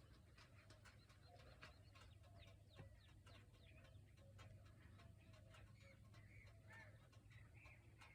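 Faint birds calling: many short chirps and brief pitched calls.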